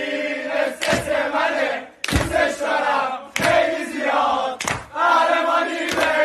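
A group of men chanting together, with a sharp clap about every second and a quarter keeping the beat.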